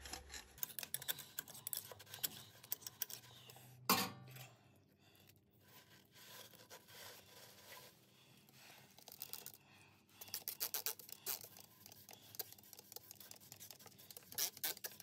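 Paper towels crinkling and scratching as a gloved hand wipes the last of the drained gear oil out of a lathe headstock gearbox, rubbing against the gears and casting. There is one sharper click about four seconds in.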